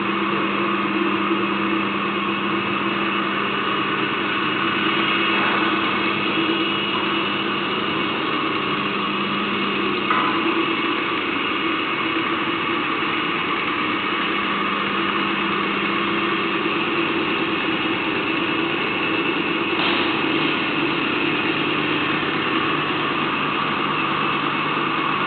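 Portable line boring machine running steadily with its boring bar turning in the bore, a constant motor-and-gear hum with a few steady tones and a small click about ten seconds in.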